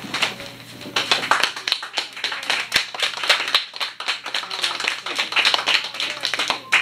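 Small audience applauding: many hands clapping, with dense, uneven claps.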